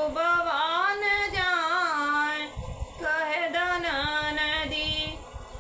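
A woman singing a Bhojpuri kajri folk song solo, in two long ornamented phrases with a brief pause between them. Her voice stops shortly before the end.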